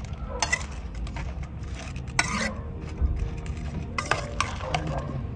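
Plastic spoon stirring chopped raw potatoes, tomato, chile and onion in an enamel bowl, scraping and clacking against the bowl in irregular strokes.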